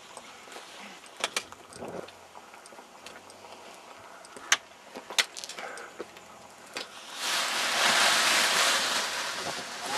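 Footsteps and scuffs on bare limestone rock, heard as scattered sharp clicks and knocks. About seven seconds in comes a loud rustling hiss lasting about two seconds, as of clothing or the microphone brushing.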